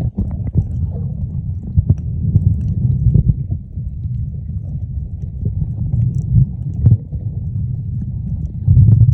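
Muffled low rumble of water moving around an underwater camera, with irregular knocks and swells that are loudest near the end.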